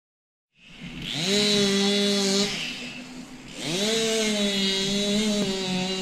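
Chainsaw cutting a large tree branch, heard from about 20 metres away. The engine revs up about a second in, drops back briefly near the middle, then revs up again and holds.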